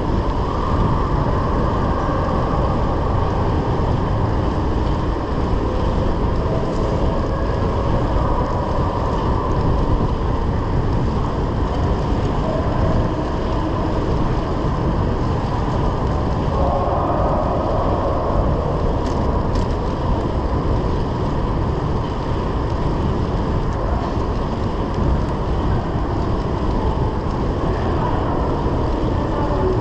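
Steady wind rush over the microphone and the tyres of a Brompton folding bike rolling along the tarmac, ridden through a road tunnel.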